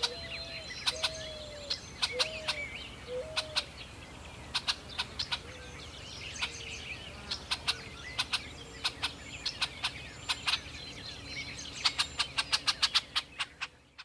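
Birds calling: many short, sharp chip notes in irregular runs, thickest near the end, with a series of low, hooked notes in the first few seconds.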